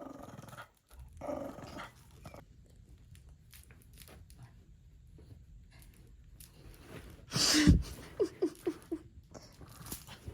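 A dog vocalizing: one loud short sound about seven seconds in, followed by a quick run of four or five short, high-pitched yips.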